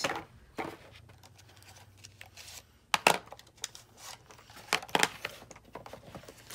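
Handling of a cosmetics box and small plastic mini lip crayons being tipped out: low rustling with scattered clicks and knocks, the sharpest about three seconds in and two more near five seconds.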